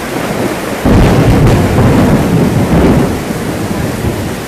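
Heavy rain pouring steadily; about a second in, a loud clap of thunder breaks in and rumbles for about two seconds before fading back under the rain.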